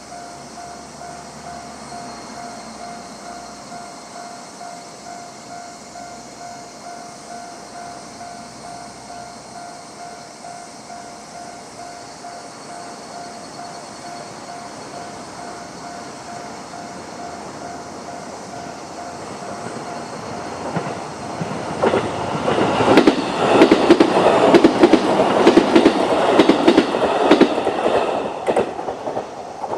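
Japanese level-crossing alarm sounding its standard repeating electronic bell tone throughout. An E531 series electric train approaches, growing louder, and passes over the crossing from about two-thirds of the way in, its wheels clattering over the rail joints, then fades near the end.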